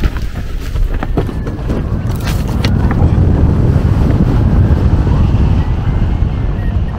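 Wind buffeting the microphone of a glider-mounted camera as a hang glider runs off the launch and gets airborne, a low rumble that grows louder from about three seconds in as airspeed builds. A few sharp knocks in the first three seconds.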